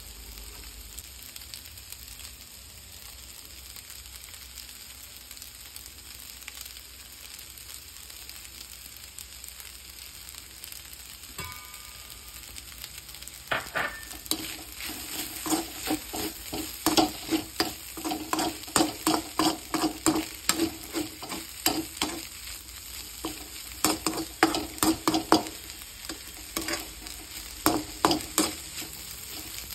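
Stir-fried noodles sizzling steadily in a metal wok. About halfway through, a metal slotted spatula starts stirring and tossing them, clanking and scraping against the pan two or three times a second, each strike ringing briefly.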